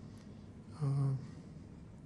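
Quiet room tone, with one short hesitation sound from a man's voice, held on one pitch, about a second in.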